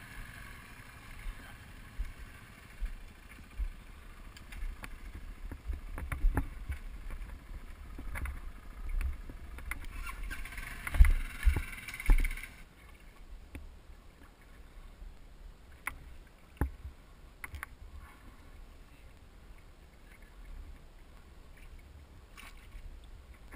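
Creek water sloshing and splashing around someone moving through a shallow blackwater creek, with low rumble and scattered knocks, the heaviest about eleven to twelve seconds in.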